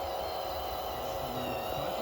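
Small electric motors of radio-controlled construction models whining steadily, the pitch wavering slightly.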